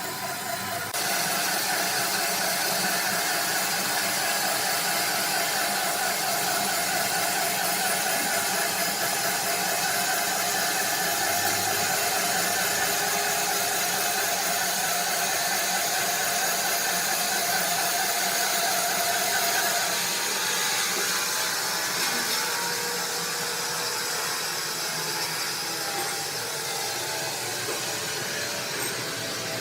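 Sawmill machinery running steadily, a dense mechanical din with a wavering whine that drops away about twenty seconds in.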